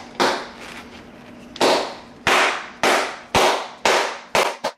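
A glove mallet whacking the leather pocket of a new Rawlings Heart of the Hide PROYM4BC catcher's mitt, about eight sharp strikes that come about twice a second after a pause near the start, each with a short ringing tail. It is the pounding that shapes the pocket during a break-in.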